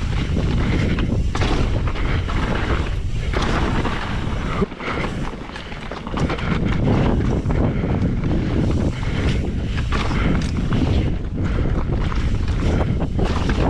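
Strong wind buffeting the microphone, a heavy, fluctuating rumble, with scattered knocks from the moving mountain bike.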